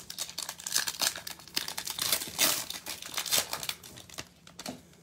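Plastic wrapper of a 2021 Prizm baseball cello pack being torn open and crinkled by hand, a dense crackling that stops shortly before the end once the cards are slid out.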